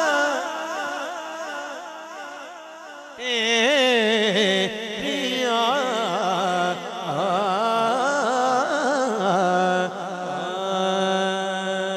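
A man singing a naat solo into a microphone, in long ornamented phrases with a strongly wavering pitch. The voice fades in the first seconds, comes back loud about three seconds in, and ends on a long held note.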